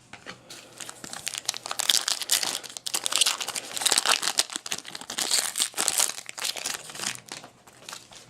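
Foil trading-card pack wrapper being torn open and crinkled, a dense run of crackles lasting several seconds.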